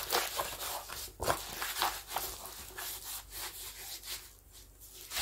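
Rustling and rubbing of a diamond-painting canvas and its plastic cover film being rolled by hand, with small scattered clicks, growing quieter toward the end.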